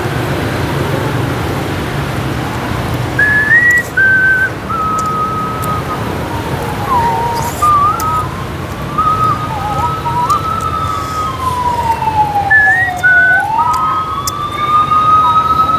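A siren wailing in slow sweeps that fall and rise in pitch, heard over steady road traffic noise. It is preceded, a few seconds in, by a string of short stepped high tones.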